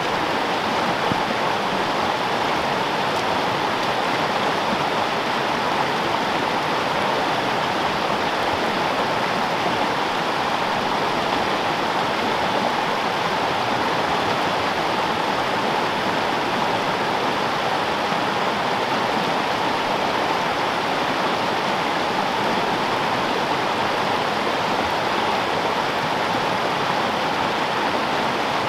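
Water of a small freestone mountain stream running steadily, a constant even wash with no breaks.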